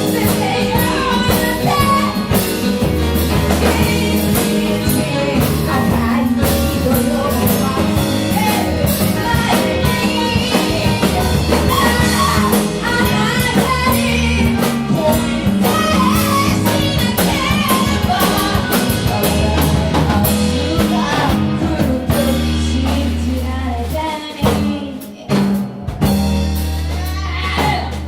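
A band song with a singing voice over drums and bass, thinning out briefly about three-quarters of the way through before the full band comes back.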